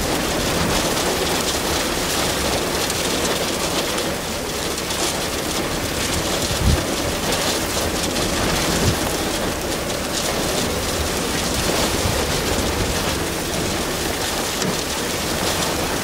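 Wind-driven rain and hail from a derecho squall line pelting the vehicle in a steady loud hiss, with gusting wind. There are a couple of louder thumps about seven and nine seconds in.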